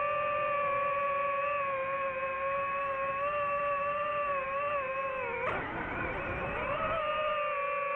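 DJI FPV drone's motors and propellers whining with a steady pitch; about five seconds in the pitch dips and the sound turns rough and noisy for a second or two as the throttle changes, then settles back to the steady whine.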